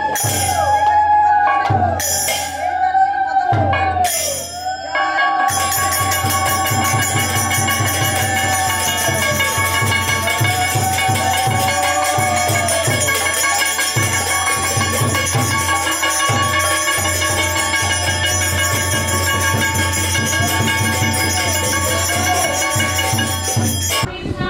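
Small brass hand cymbals and a bell-metal plate beaten with a stick, ringing and clashing in a steady ritual rhythm over a low beat. The ringing thickens into a continuous shimmer about five seconds in, then breaks off just before the end.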